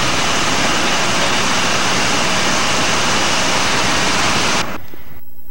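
Loud, steady rushing engine and wind noise inside a light aircraft's cockpit in flight. It cuts off abruptly near the end, leaving a quieter steady hum.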